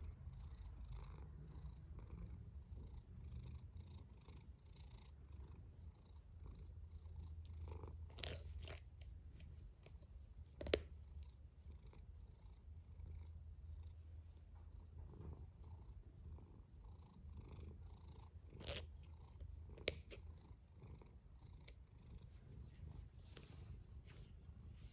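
A cat's faint, low, steady snoring rumble while asleep. A few short clicks break in, the loudest about halfway through.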